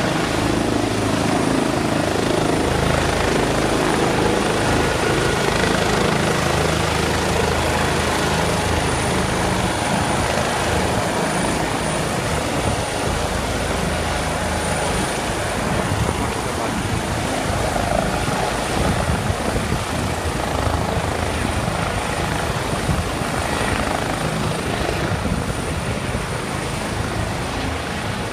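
Emergency helicopter's rotor and turbine engine running steadily and loudly as it hovers low and descends to land, with a thin steady high whine above the rotor noise.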